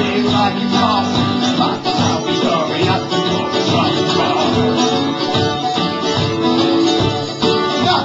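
Live acoustic band playing a blues number: acoustic guitar and mandolin strumming, with a man singing.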